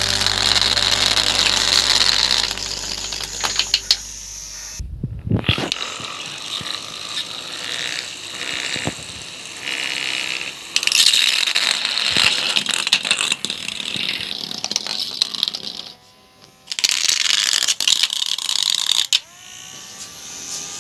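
Small DC motors of a homemade remote-control toy car running in stop-start bursts, with a rattling, whirring mechanical sound and a short rising whine as a motor spins up near the end.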